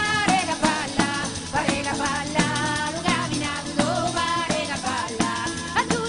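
Background music: a wavering melody with many overtones over a steady percussive beat.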